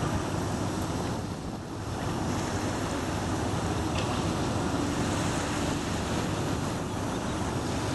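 Car ferry St Faith's propellers churning water at the stern, a steady rushing wash over a low engine hum, with some wind on the microphone.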